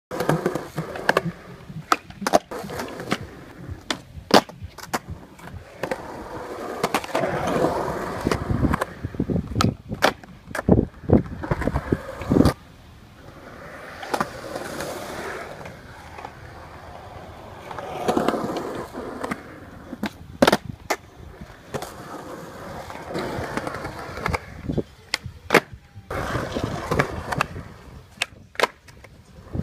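Skateboard wheels rolling, broken by many sharp clacks of the board popping and landing as tricks are done. There is a quieter stretch of rolling with few clacks about halfway through.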